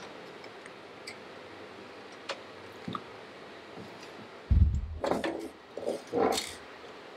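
Handling of the opened inverter's sheet-metal lid and its display board: a few light clicks, then about four and a half seconds in a dull thump followed by a cluster of knocks and rattles.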